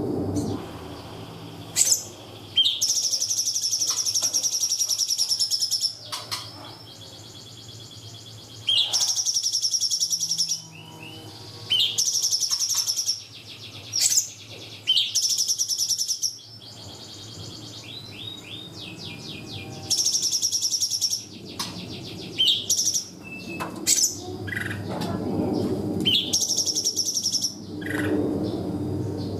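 Cungkok songbird singing loud, high, rapid trilled bursts, each lasting one to three seconds, with short natural pauses between them. A dove coos low in the background near the end.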